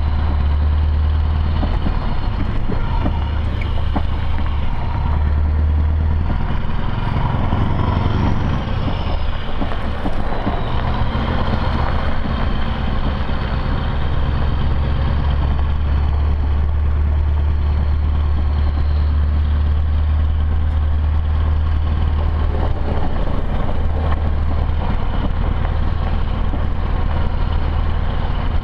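Scania R500's V8 diesel engine heard from inside the cab, pulling the truck along at low revs with about 25 tonnes of gravel aboard: a deep, steady drone whose note shifts briefly about seven to nine seconds in.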